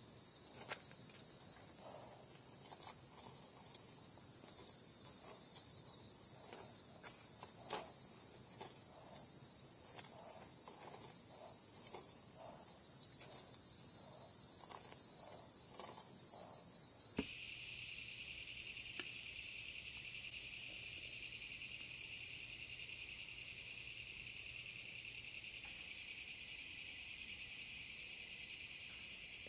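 Crickets and other night insects chirring in a dense, steady, high-pitched chorus, with faint light clicks over the first half. About seventeen seconds in, the chorus changes abruptly to a lower-pitched one.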